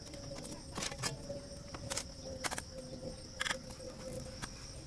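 Steady high chirring of insects, crickets, with a handful of sharp clicks and a faint steady hum that fades out near the end.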